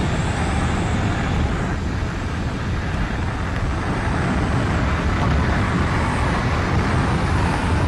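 Steady rush of wind and engine noise at the open door of a small plane in flight, with heavy wind buffeting on the microphone.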